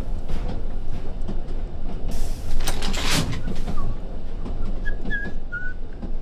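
Train sound effect: a passenger train's steady low rumble, with two loud knocks like carriage doors about two and three seconds in, and a few short whistled notes near the end.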